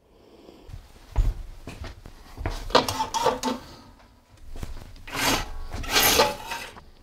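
A mosquito screen on a passenger-car corridor window being pulled along its frame, sliding and rattling, with a knock about a second in.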